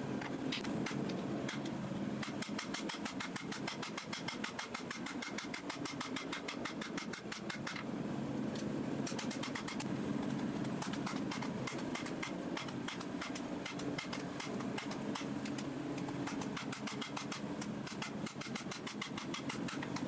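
Hand hammer striking red-hot steel on an anvil in runs of rapid, even blows with short breaks, as the blade is drawn out. A steady low drone sits underneath.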